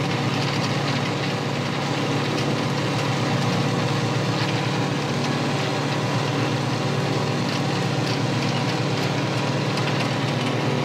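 Fishing boat's engine running steadily under way, a constant low hum with the rush of water past the hull over it, while the purse seine net is shot over the stern.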